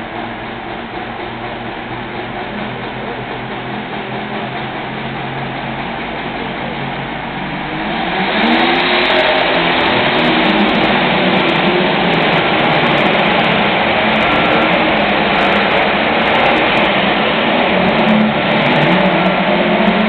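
John Deere pulling tractor's engine running steadily at the starting line. About eight seconds in it opens up to full throttle, pitch rising, and stays loud under load as it drags the weight sled down the track.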